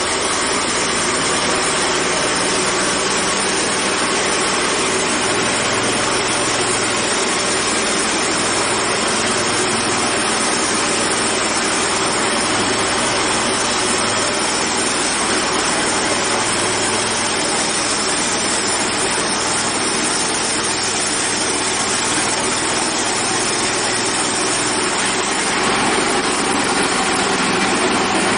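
Portable band sawmill running steadily: its small engine and band saw make a loud, even noise that holds unchanged throughout.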